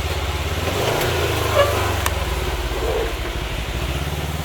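UTV engine running steadily, its pitch rising slightly about a second in and then holding.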